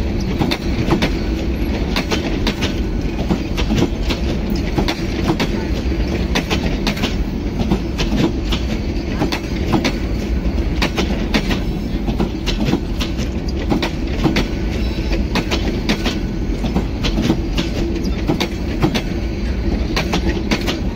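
Bangladesh Railway intercity passenger coaches rolling past, their wheels clicking over the rail joints above a steady rumble.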